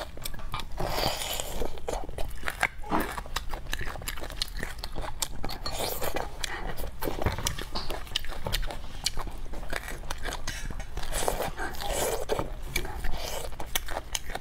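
Close-miked chewing and mouth sounds of a person eating braised beef marrow bones, many small clicks and smacks throughout, with a few longer noisy stretches about a second in, around the middle, and near the end.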